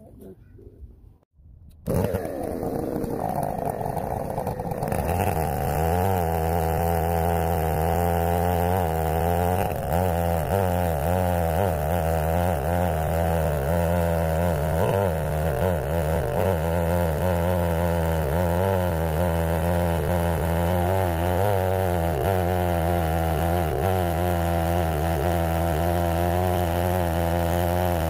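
Stihl 070 two-stroke chainsaw on an Alaskan chainsaw mill, running steadily at full throttle while ripping a black walnut log lengthwise. It cuts in suddenly about two seconds in, with its pitch wavering slightly as the load on the chain changes.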